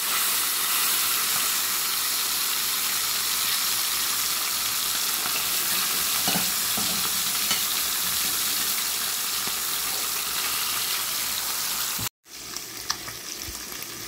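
Pieces of traíra fish deep-frying in hot oil in a pot: a steady, even sizzle. About twelve seconds in it cuts off abruptly, then comes back quieter with a few light ticks.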